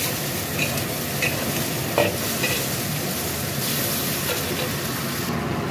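Sliced cucumber and sausage sizzling in a wok as they are stir-fried, with a metal spatula stirring and scraping against the pan. A few short scrapes and knocks of the spatula stand out over the steady sizzle, the clearest about two seconds in.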